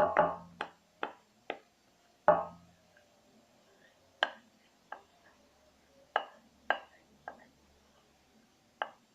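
A utensil knocking sharply against a plate about a dozen times at irregular intervals while a slime mixture is stirred.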